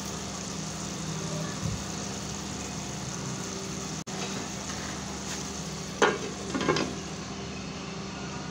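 Moong dal cooking in an aluminium pot on the stove, a steady hiss with a low hum. About six seconds in, a sharp clank and then a few lighter clinks as a glass lid is set on the pot.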